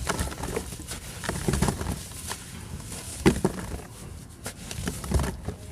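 Large chunks of compressed red sand crumbling and breaking apart, with crunching and crackling in several irregular bursts.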